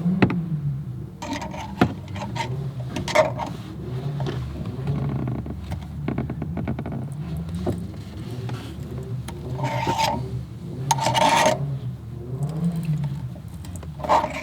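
Metal scraping and rubbing as a thread tap is turned by hand into a bolt hole, in short bursts of effort.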